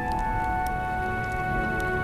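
Film score music: slow, sustained chords that shift to a new chord about a second in, over a low rumble.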